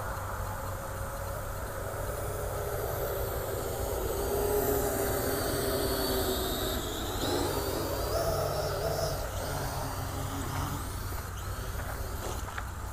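Parrot AR.Drone quadcopter's rotors whirring steadily over a low hum, the pitch of the motors shifting up and down as it changes speed.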